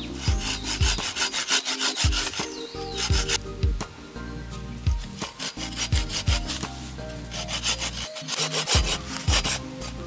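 Folding hand saw cutting through a thin tree branch, with rasping back-and-forth strokes about two a second. The strokes come in two runs, with a lull in the middle.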